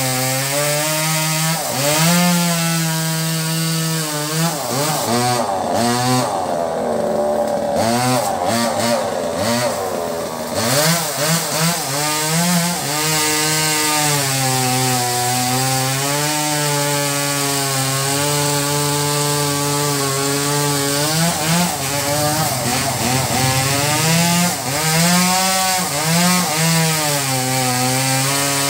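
Two-stroke top-handle chainsaw (Newest 258) with a new Husqvarna chain cutting into an old teak root. The engine note sags and wavers as the saw loads up in the cut, most markedly about a third of the way in, over a constant chain rasp.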